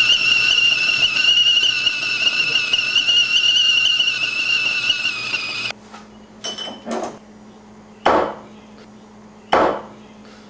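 Stovetop kettle whistling at the boil, a steady high whistle that wavers slightly and cuts off suddenly a little past halfway. Then a few sharp knocks and clinks, as of dishes.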